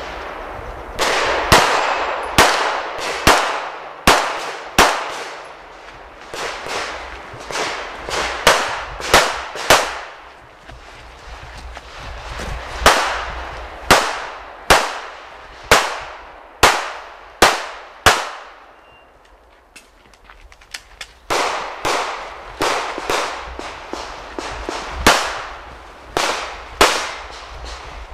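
Rapid 9mm pistol fire from a Smith & Wesson M&P9 Pro shooting a practical-shooting stage: sharp shots, often in quick pairs, in strings with short pauses between them and a longer lull about two thirds of the way through.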